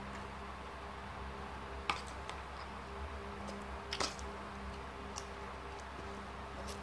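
Someone eating eggs and sardines with a spoon: a few soft clicks and mouth sounds, the sharpest about two and four seconds in, over a steady low hum.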